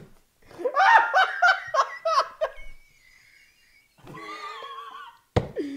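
People laughing hard, a run of loud short laughs starting about half a second in and lasting about two seconds. A quieter, steadier sound follows, then a sharp knock just before the end.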